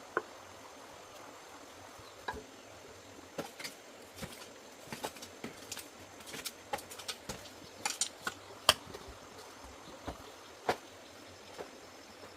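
Scattered light clicks and knocks at irregular intervals over a faint steady hiss.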